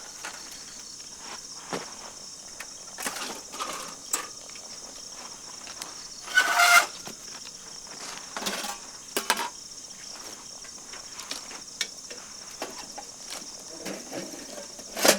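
Steady high-pitched insect chorus, like crickets, running throughout, with scattered light clicks and knocks and one louder, short burst of noise about six and a half seconds in.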